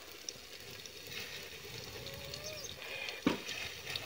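Wood fire burning under a clay cooking pot, crackling faintly, with one sharp crack about three seconds in.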